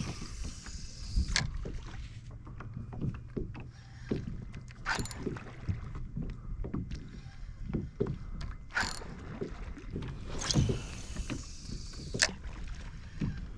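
Sounds of a fishing kayak on the water: a handful of sharp splashes a few seconds apart over small knocks and water movement against the hull.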